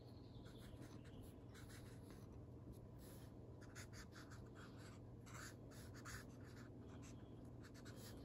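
Faint felt-tip pen strokes on paper, a quick irregular run of short scratchy swipes as lines are drawn, over a low steady hum.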